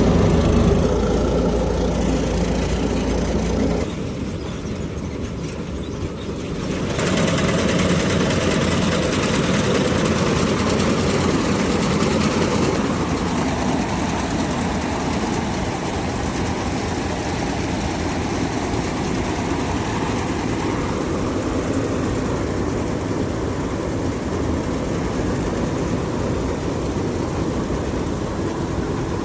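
Dasmesh 7100 combine harvester's diesel engine and machinery running steadily; the sound drops back at about four seconds in and picks up again at about seven seconds.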